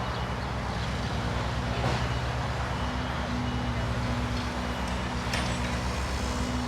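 A large engine running steadily with a low, pulsing hum.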